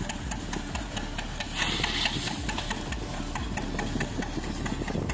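Peanut-cleaning machine running steadily, with a fast, regular mechanical clatter. A brief rush of noise comes about two seconds in.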